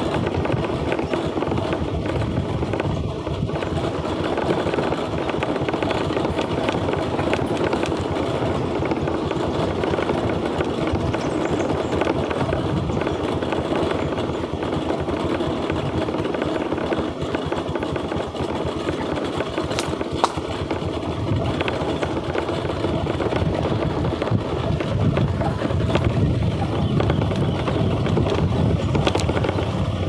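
A vehicle's engine runs steadily as it travels slowly along a road, with a constant rumble of engine and road noise and no sharp events.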